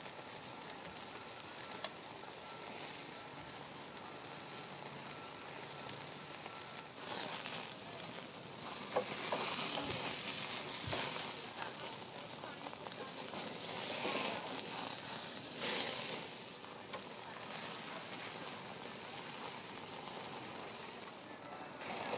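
Hamburger patties and hot dogs sizzling on a barbecue grill over open flames, with a few short scrapes and clinks of a metal spatula and tongs on the grate. The sizzling swells about a third of the way in.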